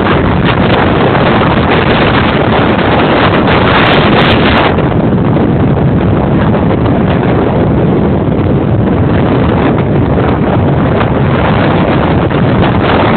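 Loud, steady wind buffeting a moving camera's microphone while travelling along a road at speed, turning a little duller about five seconds in.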